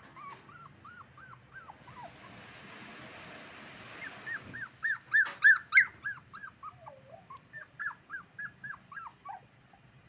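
Young puppy whimpering: a long run of short, high-pitched cries, several a second, loudest about five to six seconds in.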